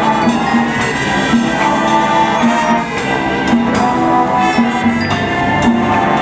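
High school marching band playing: brass and woodwinds holding pitched chords over frequent percussion hits.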